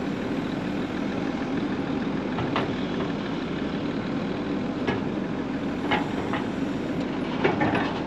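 Excavator's diesel engine running steadily at idle while it works a rock pile, with a few sharp knocks of rock scattered through.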